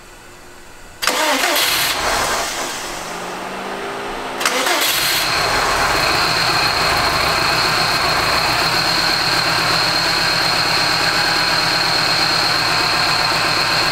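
Subaru WRX STI's turbocharged flat-four engine cranking on the starter for a few seconds, catching about four seconds in and then idling steadily, with a steady high whine over the idle. This is the engine's first run after being flooded with water and drained, a start helped along with starter fluid.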